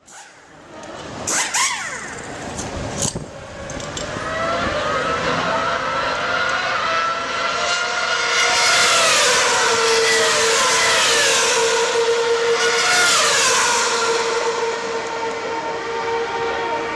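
Formula One cars' 2.4-litre V8 engines in the pit lane: high engine notes glide up and down as cars go by, and then one steady note holds for the second half. A few sharp clicks come in the first three seconds.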